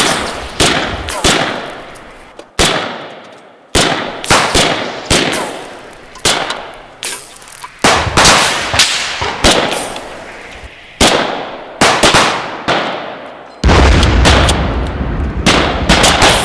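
A firefight of rifle shots, each sharp crack trailing off in a long echo, coming irregularly and several close together at times. Near the end comes a longer rapid run of shots with a heavy low rumble.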